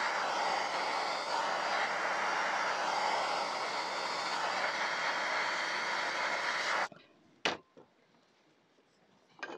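Handheld Rothenberger Superfire gas blowtorch burning with a steady hiss as it heats the bearing housing of an aluminium motorcycle crankcase half. The flame is shut off suddenly about seven seconds in, followed by two short sharp clicks.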